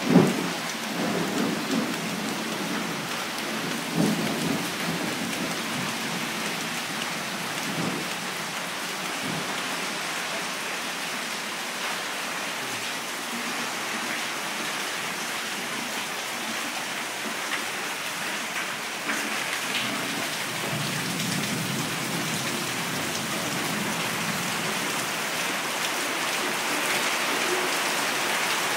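Heavy tropical downpour: a dense, steady hiss of rain pouring down. A few short low rumbles come in the first ten seconds.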